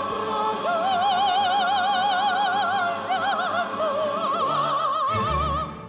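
Operatic soprano voice singing long, held notes with a wide vibrato, fading out near the end.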